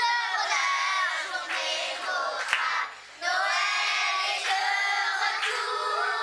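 Children's choir singing together, breaking off briefly about three seconds in before coming back in.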